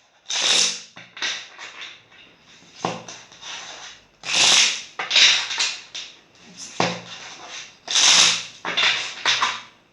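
A deck of tarot cards being shuffled by hand: a series of short swishes and taps, about a dozen in all, some coming in quick runs.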